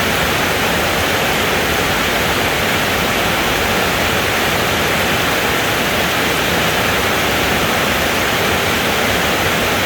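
Steady rainfall: an even, unbroken hiss with no thunder.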